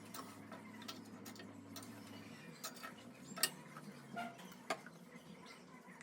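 Scattered light clicks and knocks at an uneven pace, the sharpest about three and a half seconds in, over a low steady hum that fades out about two and a half seconds in.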